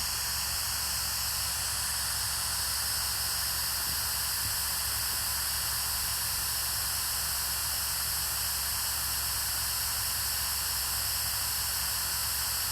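Steady static hiss with a faint low hum beneath it, unchanging throughout.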